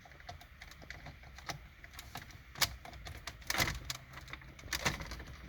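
Irregular small clicks and rattles of plastic dash parts and wiring connectors being handled and fitted, with a few louder clacks about two and a half, three and a half and five seconds in.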